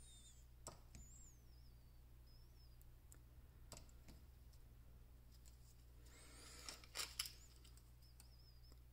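Handheld probe spot welder fusing nickel strip onto the terminals of 18650 cells: a few faint sharp snaps, then the loudest weld about seven seconds in, a short sizzle with two quick snaps.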